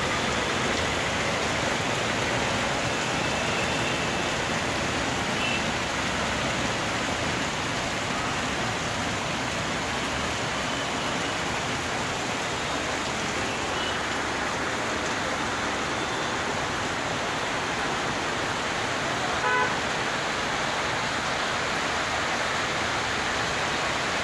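Heavy rain falling as a steady hiss, with road traffic running on the wet road. A vehicle horn toots briefly late on.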